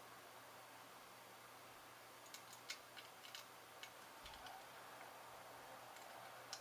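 Near silence with a faint steady hum. A couple of seconds in comes a short scatter of small, sharp clicks from tools working at a chip socket on a circuit board during desoldering.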